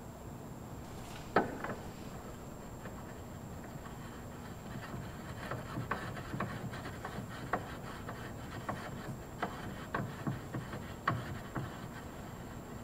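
Outer tie rod end being turned by hand onto the threaded inner tie rod: light metal rubbing with irregular small clicks, one sharper click about a second in and a run of clicks in the second half.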